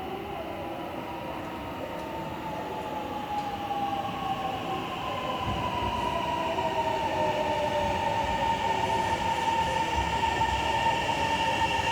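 Electric commuter train coming in and slowing, its motor whine gliding steadily down in pitch and growing louder as it nears.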